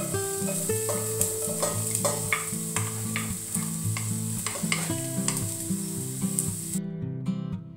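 Chopped garlic sizzling in hot oil in a stainless steel pan, stirred with a wooden spatula that scrapes and taps against the pan. The sizzle cuts off suddenly near the end.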